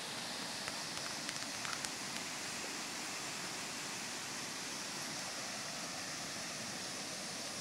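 Steady rushing of a swollen, flooded river running fast over rapids.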